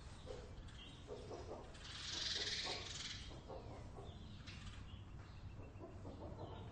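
A flock of chickens clucking inside a barn, many short clucks overlapping, with a louder, noisier burst about two seconds in. A steady low rumble runs underneath.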